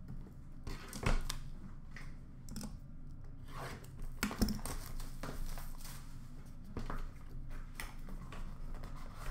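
Cardboard trading-card boxes and packs being handled on a glass counter: scattered light taps and knocks, with a sharper knock about a second in and another around four and a half seconds.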